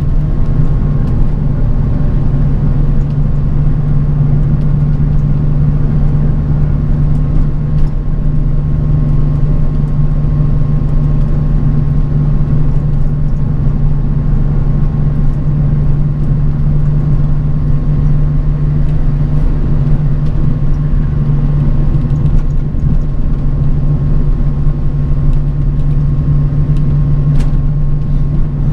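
A bus driving along, heard from inside: a steady low engine drone and road noise, with a faint steady whine and a few small rattles.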